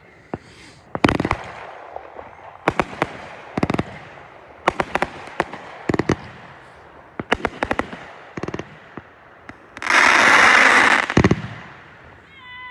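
Consumer fireworks going off: sharp bangs in quick clusters, a cluster every second or so, then a loud hissing burst lasting about a second near the end.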